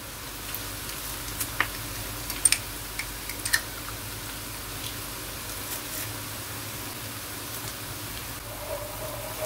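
Onion and garlic sizzling gently in butter and oil in a wok, a steady hiss, with a few light metallic clicks from a garlic press in the first several seconds.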